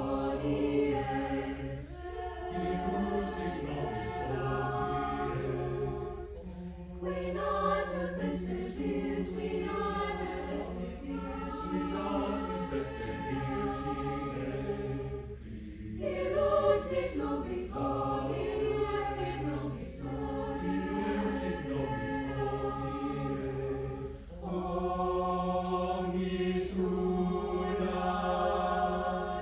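Chamber choir singing long, held phrases in several voice parts, with a short break for breath roughly every eight or nine seconds.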